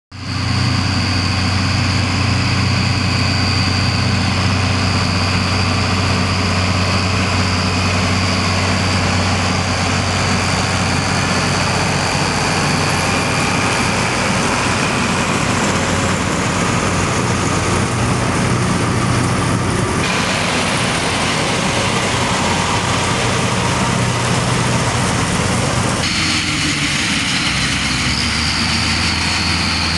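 Case IH 1056 XL tractor's six-cylinder diesel running under steady load while pulling and driving a John Deere 360 trailed combine harvester as it threshes, with a steady high whine over the engine. The sound shifts abruptly twice, about two-thirds of the way in and again near the end.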